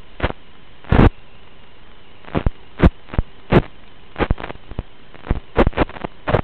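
Steady electrical hum broken by over a dozen short, loud crackles of static at irregular intervals, the loudest about a second in. This is radio interference on the audio of an analog video link from a model aircraft's onboard camera.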